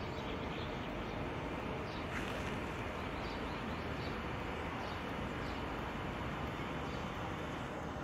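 Outdoor ambience: a steady hum of distant city traffic, with small birds chirping briefly now and then.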